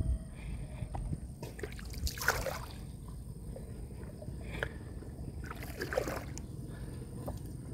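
Water sloshing, with three short splashes about two seconds apart over a low steady rumble.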